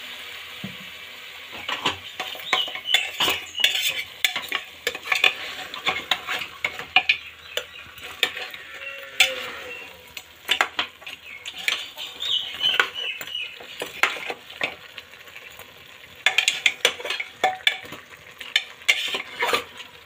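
A metal ladle stirring and scraping pieces of cow feet in an aluminium pressure cooker, with irregular clinks and knocks against the pot over a light sizzle of the masala cooking.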